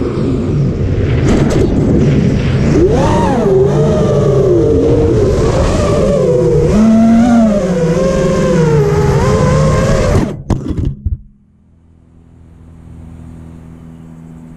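FPV racing quadcopter's brushless motors and propellers whining, the pitch rising and falling with throttle through flips and low passes, heard from the onboard camera with wind noise. The whine cuts off abruptly about ten seconds in as the quad lands, leaving only a faint low hum.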